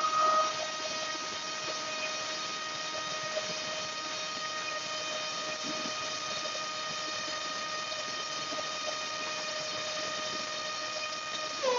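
RTF 2206 2150KV brushless motor driven by a LittleBee 20A ESC, spinning an HQ 6x4.5 two-blade propeller on a thrust stand at high throttle, about 21,600 rpm: a steady whine with a stack of overtones. Near the end the throttle steps down and the pitch drops.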